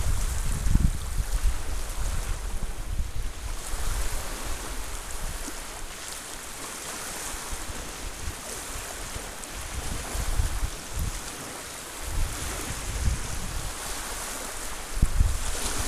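Small bay waves lapping and washing onto a sandy, pebbly shore, with gusts of wind buffeting the microphone. The wind is strongest near the start and over the last few seconds and quieter through the middle.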